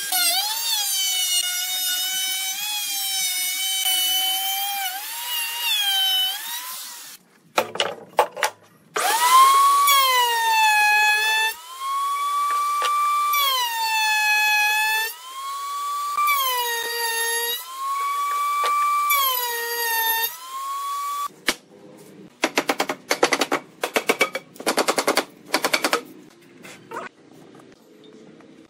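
Electric power tool whining at high speed, its pitch sagging as it bites into the wood and recovering as it frees up, again and again, with a brief stop about seven seconds in. Near the end it gives way to a quicker run of short, noisy strokes.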